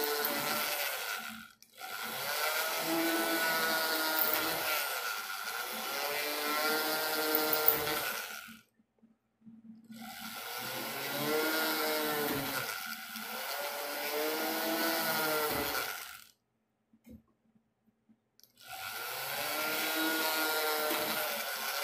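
Small handheld rotary tool with a fine drill bit drilling holes in a 1.2 mm sheet of old-coin metal, its whine rising and falling in pitch as the bit loads and unloads. It runs in bursts between holes, stopping briefly about a second and a half in, again for about a second and a half a little before the middle, and for about two seconds in the last third.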